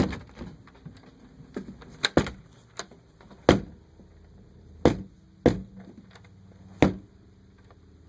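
A door being banged shut again and again, about seven hard knocks a second or so apart, because it is hard to close.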